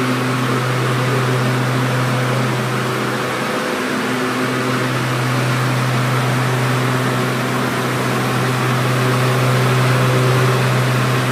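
Power Smart 26-inch cordless lawn mower's electric motor running with the blade spinning: a loud, steady hum with a whir over it, dipping briefly about four seconds in.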